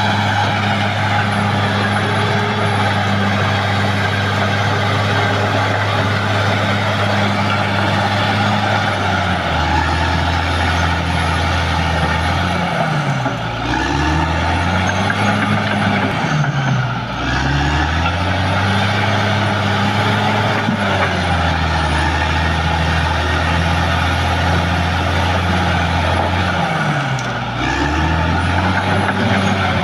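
Caterpillar D6R XL bulldozer's diesel engine running hard while it works, its pitch sagging and climbing back several times in the second half as the load and revs change.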